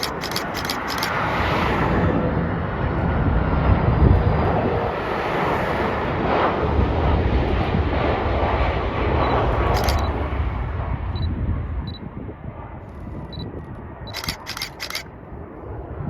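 Jet engines of a Boeing 767-300F freighter on landing approach, a steady rumbling roar that eases off after about twelve seconds. Quick bursts of camera shutter clicks near the start, about ten seconds in, and near the end.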